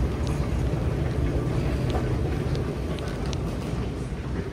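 Steady low rumble of an airport moving walkway and the terminal hall around it, with a few faint clicks scattered through.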